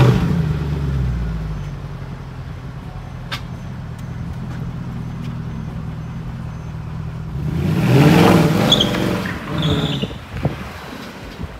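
Mercedes C63 AMG's 6.2-litre V8 starting with a loud flare, settling into a steady idle through the quad exhaust, then revved once about eight seconds in, with a smaller blip shortly after.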